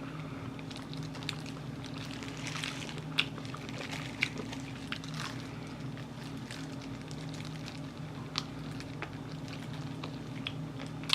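Close-up sounds of eating sauced Korean fried chicken: wet, sticky chewing with scattered sharp crunchy clicks, the loudest about three and four seconds in and again past eight seconds, over a steady low hum.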